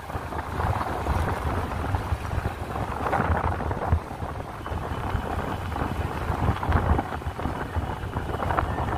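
Wind rushing and rumbling over the microphone of a phone mounted on a moving road bicycle.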